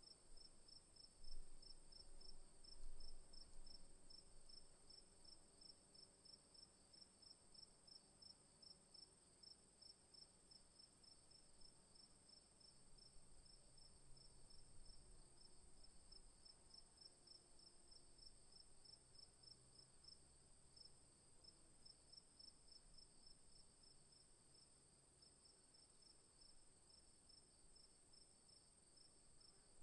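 Crickets calling faintly: a steady high-pitched trill with a second insect's regular, evenly spaced chirps beneath it. A couple of soft low bumps about one and three seconds in.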